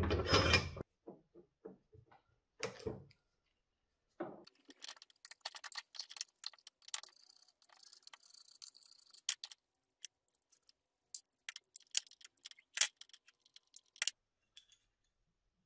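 A screwdriver working the slotted cover screws of a Bosch K-Jetronic warm-up regulator, giving a run of small, sharp metallic clicks and ticks. It is preceded by a louder scuffing handling sound at the very start and two shorter ones a few seconds in.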